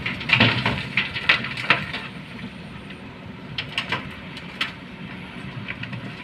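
Soil and rocks tipped from an excavator bucket crash into a dump truck's bed: a quick run of hard knocks and clatters in the first two seconds, then a few more clacks around four seconds in. Under it, the Kobelco excavator's diesel engine runs steadily.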